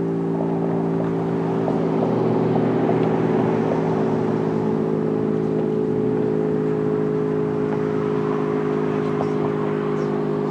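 Federal Signal STH-10 dual-tone rotating electromechanical warning siren sounding a steady, unbroken tone, swelling slightly a couple of seconds in.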